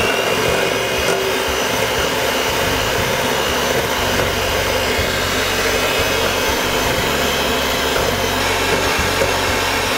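Electric hand mixer running steadily at a constant speed, with a steady whine. Its twin wire beaters are whipping cold cream in a stainless steel bowl.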